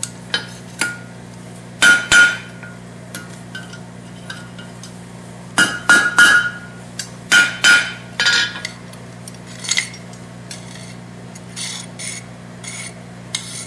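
Hammer blows on a hot chisel over a steel cut plate and anvil, cutting a horseshoe off 3/8-inch round stock: a dozen or so ringing metal strikes at uneven intervals, some in quick pairs. The later strikes are lighter. A steady low hum runs underneath.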